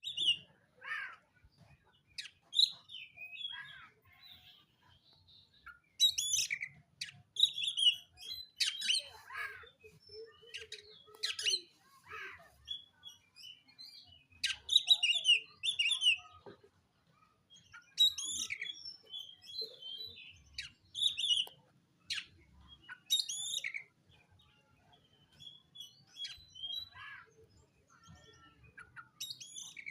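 Black Oriental magpie-robin (kacer wulung) singing in a fighting mood, challenging a rival: a string of loud, varied whistles, sweeps and harsh chattering notes, delivered in short phrases with brief pauses between them.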